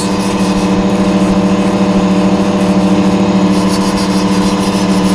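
A motor running with a steady, even hum that holds its pitch, while rust is brushed off the edges of an alloy wheel rim.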